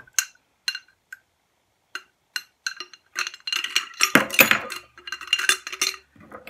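Metal candle snuffers clinking against a glass jar as they are put into it: a few separate clinks, then a busier run of clinking and rattling in the second half.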